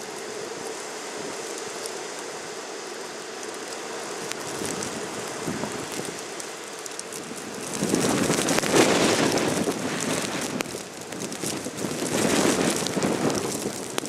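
Blizzard wind blowing steadily, then gusting hard twice, about eight seconds in and again near the end, as blowing snow sweeps the street.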